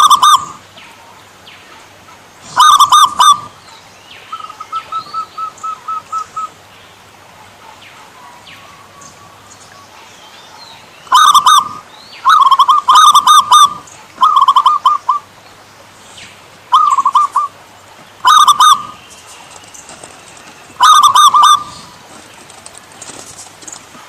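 Zebra dove (perkutut) song: phrases of rapid, bubbling coo notes repeated every one to three seconds, with a softer run of evenly spaced notes about four to six seconds in.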